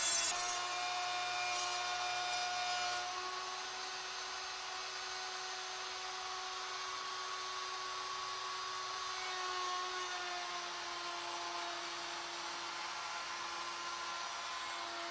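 Router on a CNC-driven Legacy Ornamental Mill running, its bit cutting a taper along a square wooden leg blank: a steady motor whine over cutting noise. The whine drops slightly in pitch about ten seconds in.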